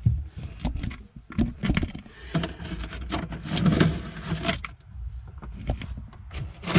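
Hands working among a boat's engine-bay wiring and corrugated blower hose, cutting cable ties: an irregular run of clicks, scrapes and rustles over a low rumble.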